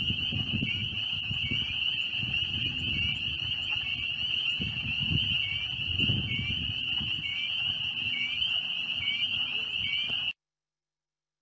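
Dense chorus of spring peepers, a steady high-pitched peeping, with wood frogs quacking faintly underneath and an uneven low rumble. The sound cuts off suddenly near the end.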